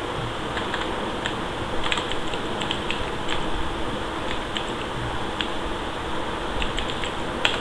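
Computer keyboard keys clicking as text is typed, in irregular runs of keystrokes over a steady background hiss.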